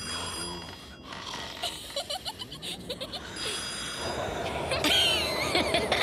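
An old-style desk telephone bell ringing in short bursts, then blizzard wind rising and whistling near the end.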